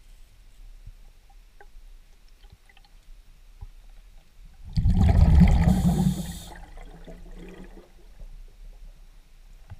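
Underwater: a scuba diver's exhaled breath bubbling out of the regulator in one loud gurgling burst of about two seconds near the middle, over faint scattered ticks.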